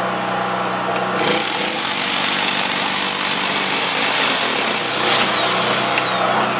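Overburden collapsing off a rock face: loose rock and dirt come crashing down in a rattling rush that starts suddenly about a second in and lasts about four seconds.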